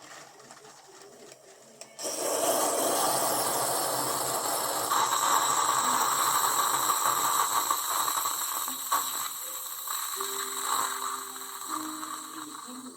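Tassimo pod coffee machine brewing: its pump starts about two seconds in and runs with a steady hiss of hot water forced through the pod, easing off near the end.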